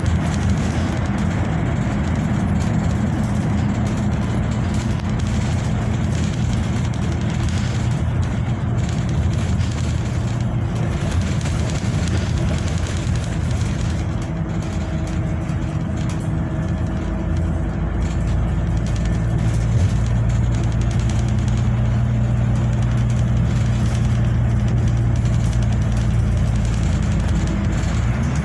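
A bus in motion: its engine and road noise make a steady low drone, with the engine note shifting slightly as it changes speed.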